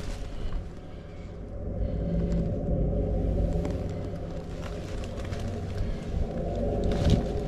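A steady low rumble, louder from about two seconds in, with a few faint clicks.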